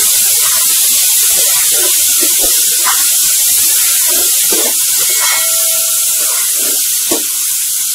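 Chopped tomatoes sizzling in hot oil with fried onions in a non-stick kadai, a steady hiss broken by short scrapes of a spatula stirring them against the pan.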